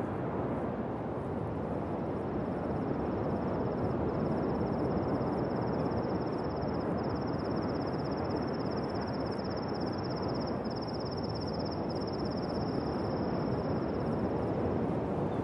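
Steady rushing noise of a mountain bike ride on a gravel trail: wind on the microphone mixed with tyres rolling on gravel. Over it, a high, fast-pulsing cicada buzz starts about a second and a half in and stops near the end.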